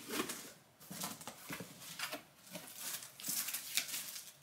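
A cardboard shipping box being opened by hand: scattered soft scrapes and taps as the flaps are pulled back, with a brief crinkling rustle of the plastic-wrapped contents about three seconds in.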